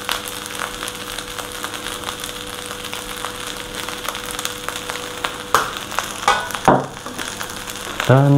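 Fried rice sizzling and crackling in an aluminium wok over a lowered gas flame, with a faint steady hum underneath. A few louder scrapes and knocks, like the metal spatula striking the wok, come a little over halfway through.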